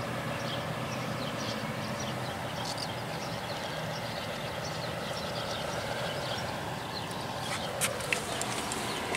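Steady outdoor background hum with short, faint bird chirps scattered through it, and a few light clicks about eight seconds in.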